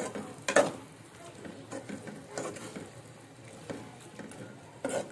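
A spatula scraping and knocking against an aluminium karahi as meat is stirred in a thick masala, with a sharp knock about half a second in and another near the end.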